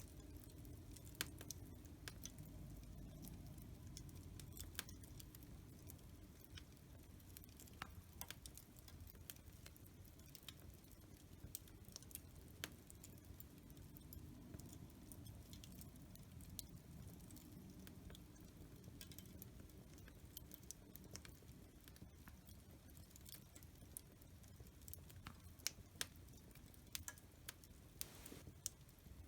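Wood fire crackling in a fireplace: faint, irregular sharp pops and snaps over a soft low rumble of the flames, with a few louder pops near the end.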